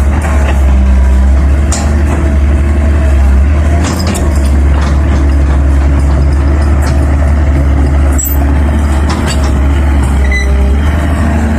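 Heavy diesel machinery engine running steadily with a deep drone, with a few sharp knocks, about a second and a half, four and eight seconds in.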